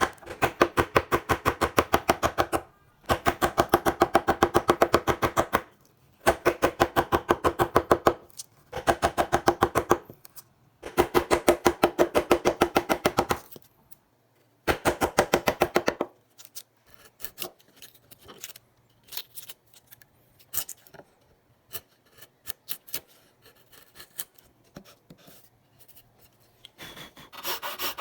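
A hand tool working wood in fast rhythmic strokes, several a second, in runs of two to three seconds with short pauses between them. Then come about ten seconds of light, scattered taps and clicks, and the fast strokes start again near the end.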